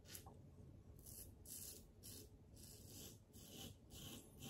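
Double-edge safety razor scraping through lathered stubble in short, faint strokes, about two a second.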